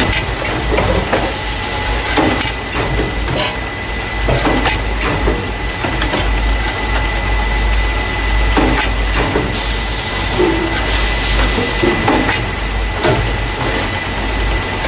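Carton case packer running, the machine that moves paper cartons of juice or milk into plastic crates: a constant low hum and a thin steady whine, with frequent irregular clacks and knocks of the mechanism and a few hissing bursts, like air being let out.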